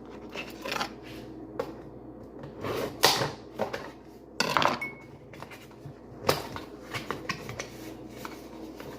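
Kitchen handling noises: a run of scattered knocks, clinks and clatters, as of objects being picked up and set down on a counter, the loudest about three and four and a half seconds in.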